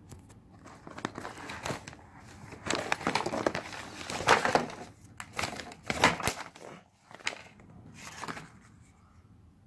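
Rustling and crinkling of a printed tote bag and paper leaflets being handled and unpacked, in irregular bursts with a few sharper crackles.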